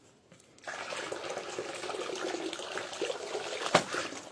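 Water poured from a plastic bucket into a plastic basin, starting just under a second in and running steadily, with one sharp knock near the end.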